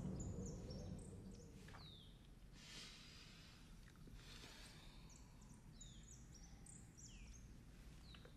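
Faint birdsong in the background: clusters of short high chirps, some sweeping downward, repeating through the quiet. Two soft breaths are heard a few seconds in, and the tail of background music fades out at the start.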